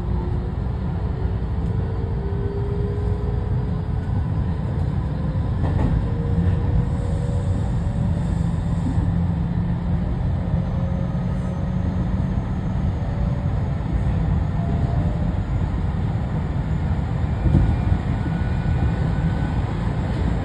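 Interior running noise of a JR West 207 series 2000-subseries electric train, in the KuMoHa 207 motor car with its Toshiba IGBT VVVF inverter: a steady low rumble of wheels on rail, with faint motor tones rising slowly in pitch as the train gathers speed. A sharp knock comes about 17 seconds in.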